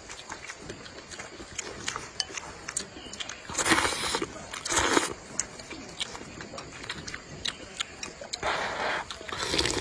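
Rice noodles being slurped in noisy sucking bursts: one about three and a half seconds in, a short one around five seconds, and a longer one near the end, with small mouth and chewing clicks between.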